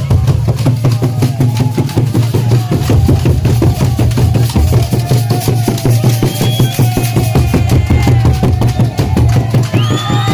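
Background dance-pop music with a steady drum beat and heavy bass, and a wavering melody line over it.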